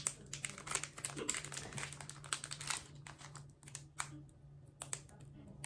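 Trading-card pack wrapper crinkling and crackling as it is worked open by hand, a quick run of crackles that thins out about halfway through.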